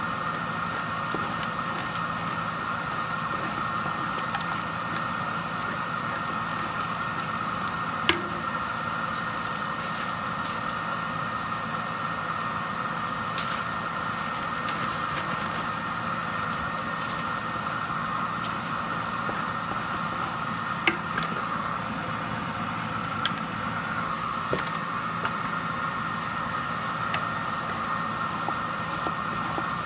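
A steady whirring hum throughout, with a few sharp light clicks and knocks as food is mixed by hand and with a wooden spoon in a stainless steel pot.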